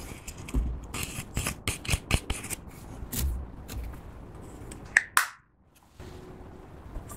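Clear slime being stretched and pressed by hand, giving a run of sticky clicks and crackles. About five seconds in there is one louder squelch.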